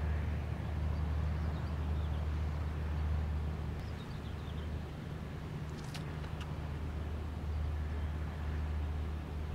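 Low, steady drone of an inland cargo ship's engine carried across the water, easing off a little in the middle and then returning.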